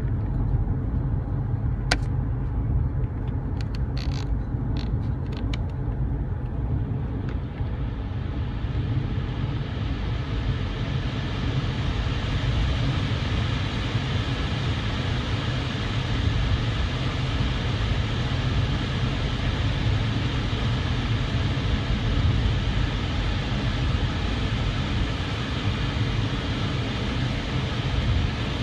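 Car air-conditioning blower at full blast: a rushing hiss of air from the vents that swells in about seven seconds in and then holds steady, over a constant low rumble of the vehicle. A few sharp clicks in the first six seconds.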